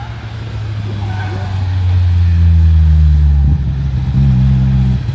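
Fiat 127 Sport's four-cylinder engine pulling hard as the car drives past close by through a slalom, growing louder to a peak mid-way. About three and a half seconds in, the engine note changes.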